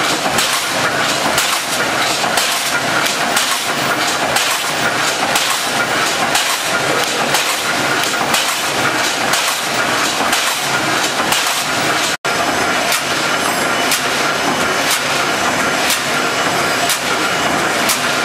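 Automatic can-making press stamping, a continuous run of sharp metal strikes over steady machine noise.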